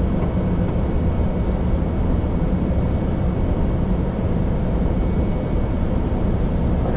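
Steady rushing flight-deck noise of an Airbus A320neo on approach: airflow and engine noise, low and even throughout.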